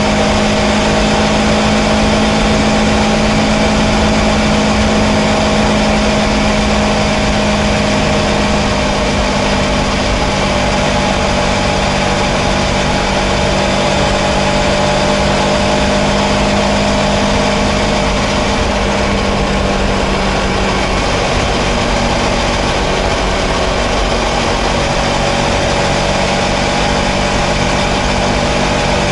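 Kawasaki Versys 650's parallel-twin engine running at a steady cruise, with wind and road noise from riding at speed. Its note dips slightly in pitch about two-thirds of the way through, then holds steady again.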